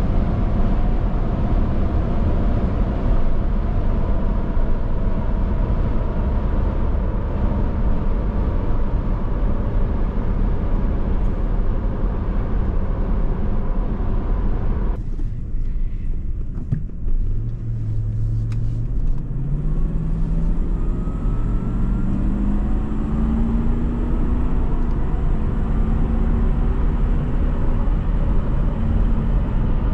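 Supercharged Toyota Land Cruiser V8 SUV driving, with a steady rumble of engine and road noise. About halfway through the noise briefly drops away. Then the engine note climbs in several steps as the SUV accelerates up through the gears.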